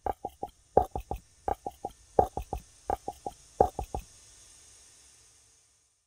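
Galloping hoofbeats sound effect: hollow clip-clop knocks in quick groups of three or four, about every 0.7 s, stopping about four seconds in. A faint hiss follows and fades out.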